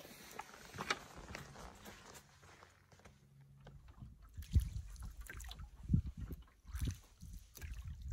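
Canoe paddling: a wooden paddle pulling through lake water, with several low thumps and splashes of the strokes in the second half.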